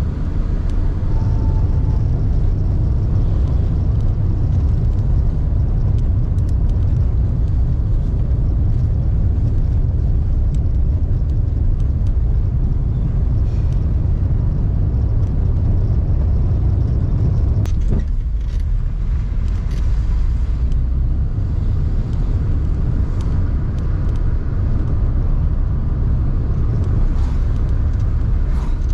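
Car driving steadily: a constant low rumble of road and engine noise heard from inside the cabin, with a few light clicks and one sharper click.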